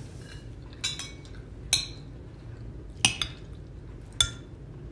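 Metal serving spoon clinking and scraping against a large glass salad bowl and a small plate while salad is served: a handful of sharp clinks about a second apart.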